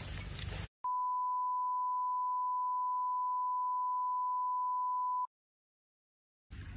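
A steady electronic beep at one fixed pitch, held for about four and a half seconds, with dead silence just before and after it where the outdoor sound is cut out.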